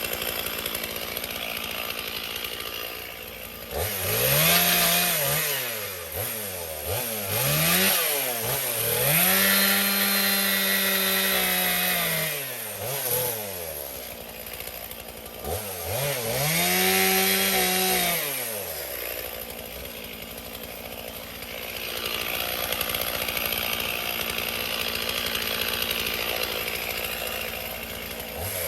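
Chainsaw revved up and down again and again, held at full throttle twice for a few seconds as it cuts through a fallen branch, then running at lower speed near the end.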